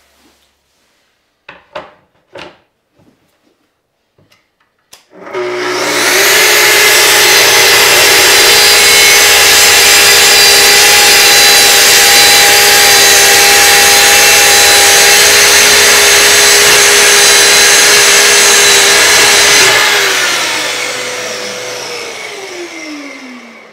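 A few light knocks, then a Festool TS55 plunge track saw starts about five seconds in and cuts through 3/4-inch plywood along its guide rail with a loud, steady whine for about fourteen seconds. It is then switched off and spins down, its pitch falling away.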